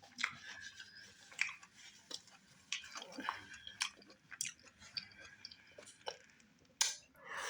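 Close-up wet chewing and mouth smacking on a mouthful of okra stew with tripe and fufu: irregular soft clicks and squelches, with a louder smack near the end.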